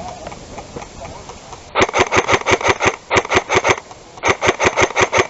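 Airsoft electric gun firing three quick full-auto bursts of about ten shots a second, each shot a sharp mechanical crack.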